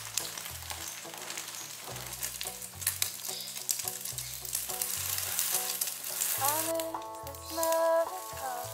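Beaten egg sizzling in hot oil in a frying pan as an omelette cooks: a steady hiss with many small crackles. Background music with a bass line plays under it, and a louder melody comes in near the end.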